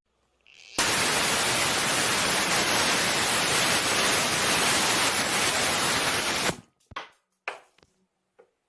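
Loud, even hiss of static-like white noise that switches on abruptly and cuts off about six seconds later, followed by a few faint clicks.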